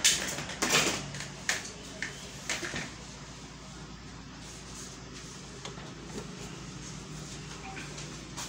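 A few sharp plastic knocks and rattles in the first three seconds, from a toner cartridge being handled after removal from a Kyocera ECOSYS M6630 colour laser printer, then a low steady hum with only a few faint ticks.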